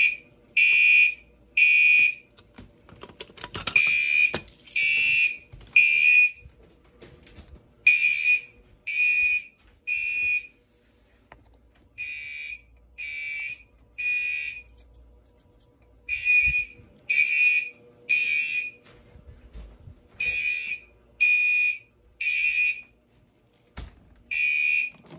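Fire alarm horns sounding in the temporal-three (code 3) evacuation pattern: three short, high-pitched electronic blasts, a pause, then three more, repeating.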